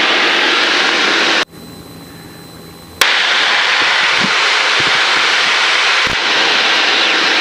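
Steady engine, propeller and wind noise inside the cabin of a single-engine light airplane climbing out after takeoff. About one and a half seconds in, the sound drops away abruptly for about a second and a half, then returns with a click.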